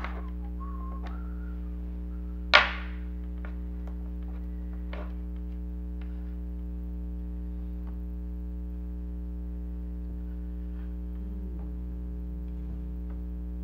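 Steady low electrical hum, with one sharp knock about two and a half seconds in and a few faint clicks of tools being handled on a workbench.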